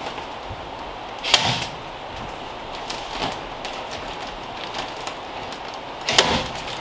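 Work noise from fitting faced insulation batts into a ceiling: two sharp clacks about five seconds apart, with lighter clicks and rustling between.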